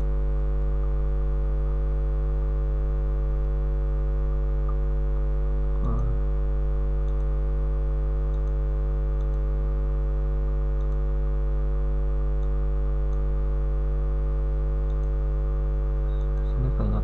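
Steady electrical mains hum in the recording, a constant low buzz with a ladder of overtones, with a few faint clicks over it.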